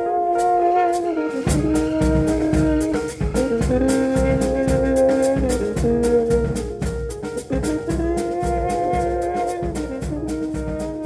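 Live jazz big band playing Afrobeat-style music: the horn section of saxophones, trumpets and trombone holds chords over a steady percussion pulse. Bass and drums come in heavily about one and a half seconds in.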